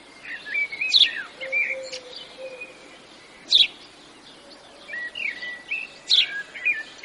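Woodland birds singing and calling: warbling chirps with a sharp, high call that repeats about every two and a half seconds, over a soft background hiss.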